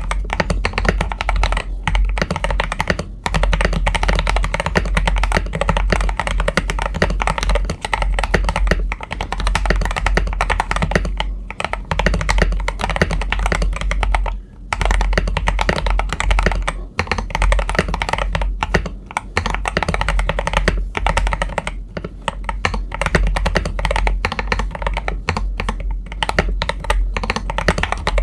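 Continuous fast typing on a mechanical keyboard fitted with Akko CS Jelly Black linear switches, keys clacking in quick runs with a few brief pauses.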